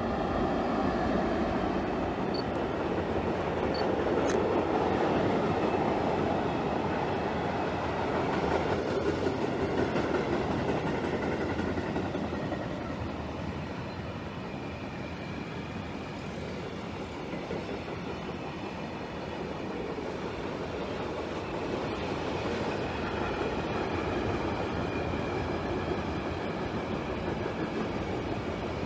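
Freight train hauled by an ÖBB class 1144 electric locomotive passing through: a steady rumble and clatter of wheels on the rails as a long string of freight wagons rolls by, loudest in the first few seconds as the locomotive goes past.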